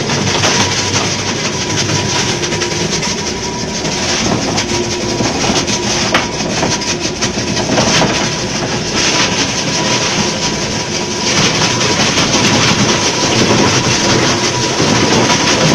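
Electric block-ice crusher machine running and crushing ice: a loud, steady mechanical noise.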